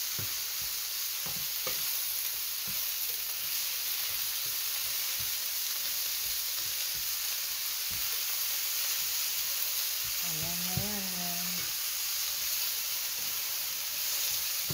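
Sliced mushrooms, red onion and green bell pepper sizzling steadily in a nonstick frying pan over high heat. They are stirred with a silicone spatula that scrapes and taps irregularly against the pan.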